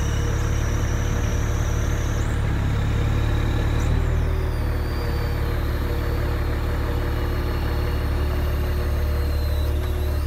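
Block-unloading truck's engine running steadily while its truck-mounted crane works, a constant deep rumble. Over it a thin high whine shifts in pitch a few times.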